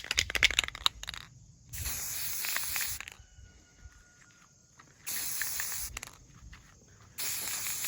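Aerosol spray can of gloss red paint being sprayed in three short bursts of hiss, each about a second long. Before the first burst comes a quick rattling run of clicks.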